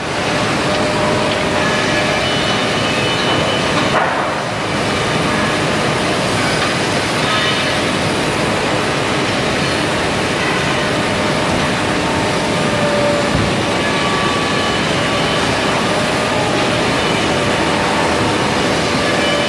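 Steady machinery noise on a factory floor, with faint steady tones running through it and a short knock about four seconds in.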